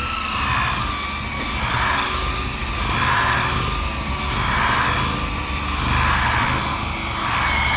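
Electric orbital sander running on a wooden board, its sound swelling and fading about every second and a half as it is worked back and forth. It is wet-sanding an oil finish into a slurry of sawdust and finish, the 'gravy'.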